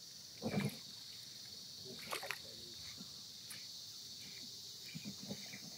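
Steady high-pitched chorus of crickets or similar insects. A soft thump comes about half a second in and a couple of brief clicks about two seconds in.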